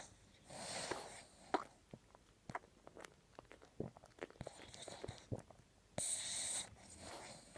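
Boxer puppy snoring in her sleep: a few noisy, hissing breaths, the loudest about six seconds in, with scattered short clicks between them.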